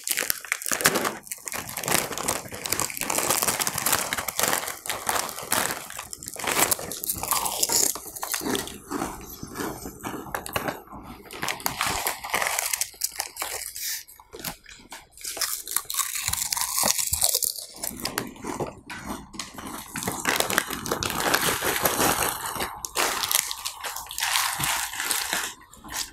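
People crunching and chewing Bingo Hot Chilli potato chips, a dense run of crisp, crackly bites.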